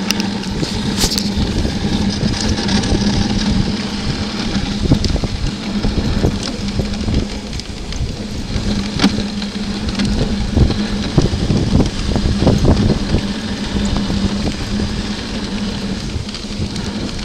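Dog sled moving along a snowy trail: a continuous rumbling scrape of the runners over snow, with scattered knocks and rattles from the sled and gusts of wind on the microphone, over a steady low hum.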